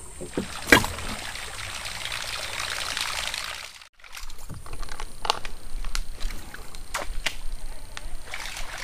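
Water trickling and sloshing around a wooden canoe, with a sharp knock about a second in and a few fainter clicks later. The sound drops out for a moment near the middle.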